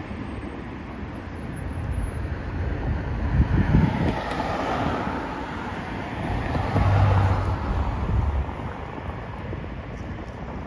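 Street traffic: a vehicle passing, its tyre and engine noise rising over a few seconds and fading again, with low wind rumble on the microphone.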